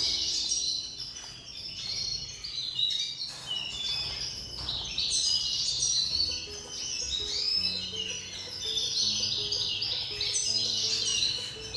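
Small songbirds chirping and twittering in quick, high-pitched runs, over background music with held low notes.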